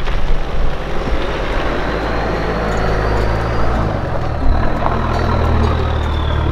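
Toyota four-wheel-drive pickup driving a rough stony track, its engine running with a steady low drone that shifts pitch about four seconds in.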